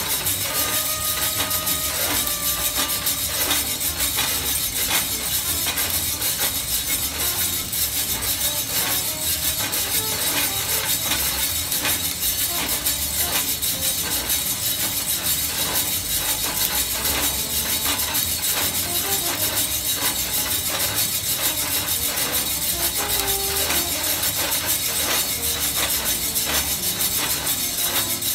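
Homemade stainless-steel drum coffee roaster running during a roast: a steady hiss with coffee beans tumbling in the drum and frequent small crackles.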